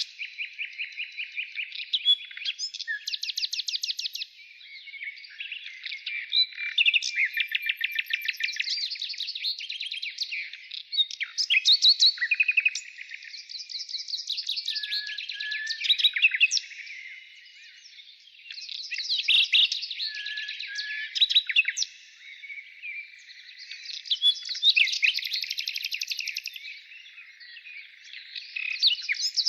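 Birds singing: phrases of rapid trilled notes and chirps, each lasting a few seconds and starting again after short gaps.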